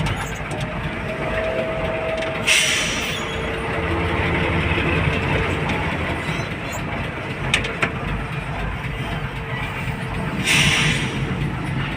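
Heavy diesel container truck engine idling with a steady low rumble, broken twice by a short hiss of released air, about two and a half seconds in and again near the end, like truck air brakes.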